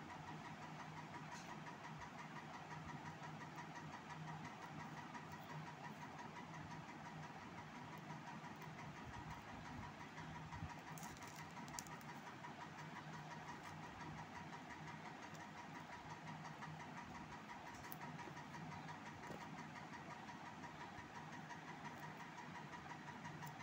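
Steady low hum of background noise, with a few faint clicks and taps about halfway through as a cardboard smartwatch box is handled.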